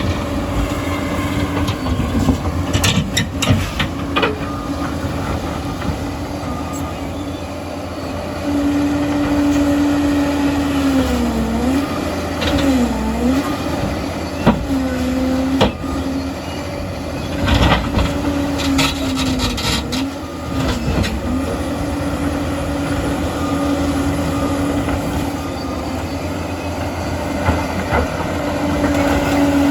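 Liebherr PR 746 crawler dozer's diesel engine running steadily under load, its pitch dipping briefly several times as it lugs, with a few sharp clanks and knocks.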